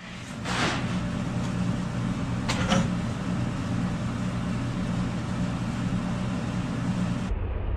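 Steady low electric hum of pumps running in a pool equipment room, with a short hiss about half a second in and a couple of quick metallic clicks about two and a half seconds in as he works on the copper fitting.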